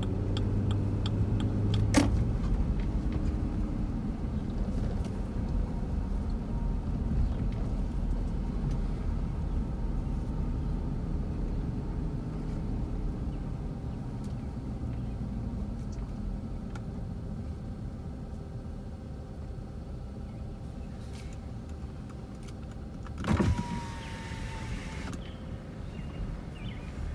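Low rumble of a car's engine and tyres heard from inside the cabin at low speed, with a single click about two seconds in. Near the end an electric window motor whines for about a second and a half.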